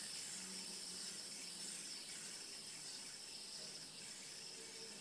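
Faint steady whirring hiss of a plastic light-up fidget spinner spinning on its bearing, held close to the microphone. It slowly fades as the spinner loses speed.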